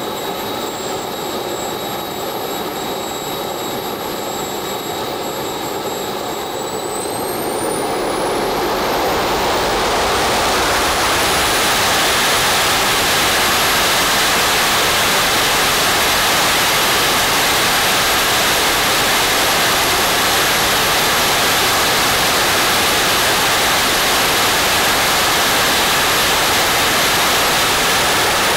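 Small RC turbine jet engine burning Jet A, whining steadily at idle, then spooling up about seven seconds in as its high whine climbs. It then runs at full throttle, near 98,000 rpm, with a loud steady rush and high-pitched whine, a full-power thrust pull. Right at the end the throttle comes back and the whine starts to drop.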